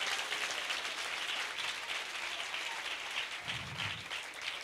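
Seated crowd applauding, many hands clapping at once, easing off slightly near the end.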